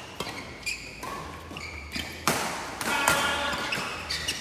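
Badminton rally: several sharp hits of rackets on the shuttlecock, coming at irregular intervals less than a second apart, with an echo from a large hall.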